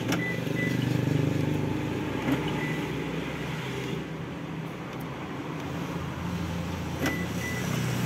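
Steady low hum inside a car cabin. A sharp click, then short high beeps, comes near the start and again about seven seconds in.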